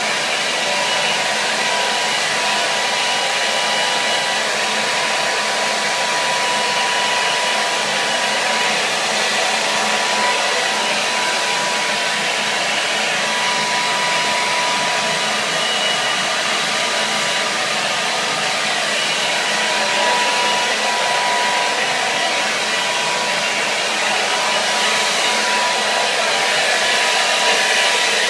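Hair dryer running steadily, an even blowing rush with a thin steady whine through it.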